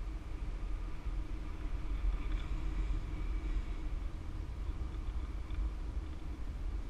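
Wind rushing over the camera microphone during a tandem paraglider flight, a steady low rumble.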